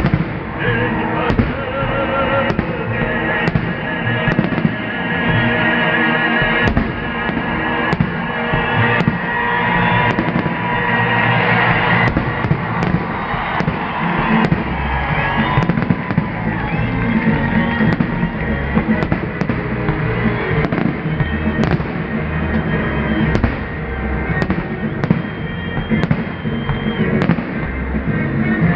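Festive salute fireworks bursting again and again, with music playing under the bangs.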